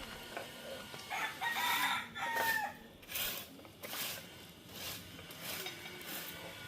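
A rooster crowing once, a drawn-out call starting a little over a second in and falling away at the end.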